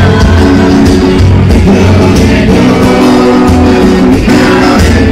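Live music: a man playing acoustic guitar and singing.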